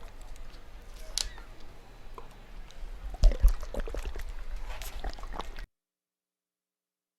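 Faint open-air ambience with a low rumble on the microphone and scattered clicks and knocks, with a louder low thump a little over three seconds in; the sound then cuts out completely to dead silence.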